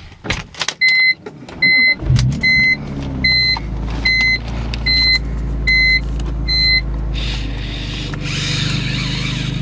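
2006 BMW M3's inline-six with a custom Magnaflow straight-pipe exhaust starting about two seconds in, flaring briefly and settling into a steady idle. A dashboard warning chime beeps about every half second over it and stops near the end.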